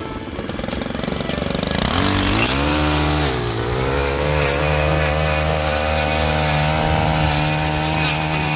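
Gas-powered stick edger's small engine revving up about two seconds in, dipping briefly, then holding steady at high speed as the blade cuts the grass edge along a concrete sidewalk.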